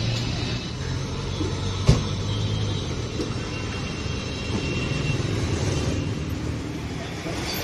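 Low, steady rumble of street traffic with an engine running, and one sharp knock about two seconds in.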